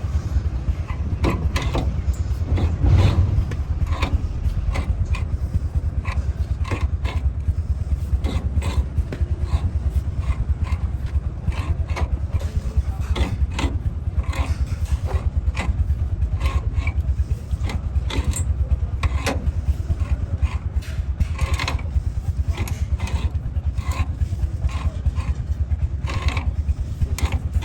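Steady low engine rumble, with irregular metallic clicks, taps and scrapes of hand tools working on metal.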